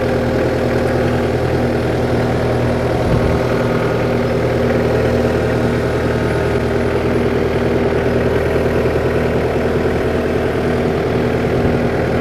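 New Holland Boomer 50 compact tractor's diesel engine running steadily at low speed while the tractor reverses slowly in low range.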